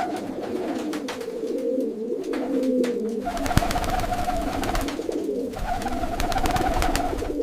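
Several pigeons cooing continuously, an overlapping warbling murmur, with scattered sharp clicks throughout.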